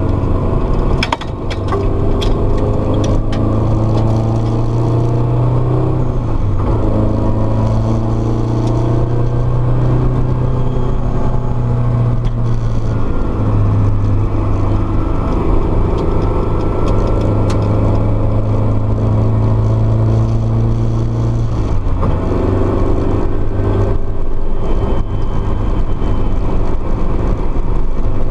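Honda S2000's HKS-supercharged four-cylinder engine running hard on a track lap, heard from inside the cabin. Its note holds steady between a few steps in pitch as the driver works the throttle, with a short dip and a few sharp clicks about a second in.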